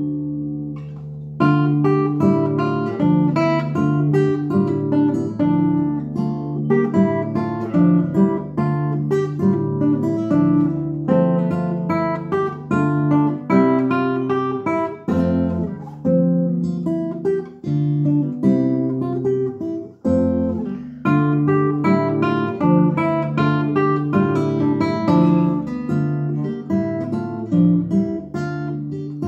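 Classical nylon-string guitar played fingerstyle: a minuet, plucked melody notes over a bass line, with a short pause about a second in.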